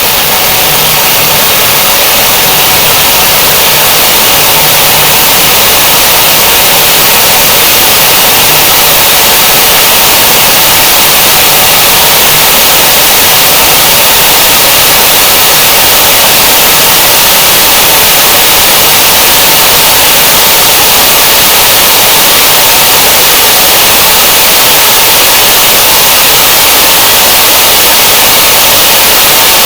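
Large audience applause: several crowds of clapping layered together into one dense, steady wall of claps.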